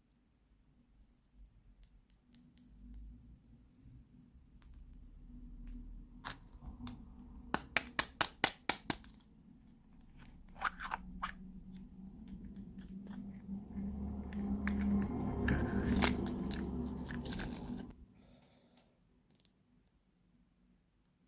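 Small plastic toy kitchen pieces and their packaging being handled, with scattered light clicks and taps. A quick run of sharp clicks comes about eight seconds in, then several seconds of rustling and scraping that stops a few seconds before the end.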